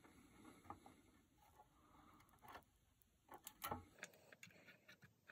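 Near silence: room tone with a few faint light ticks.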